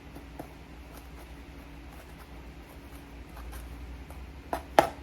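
Light scraping and tapping of a knife on a cutting board over finely chopped parsley, then two sharp knife knocks on the board near the end.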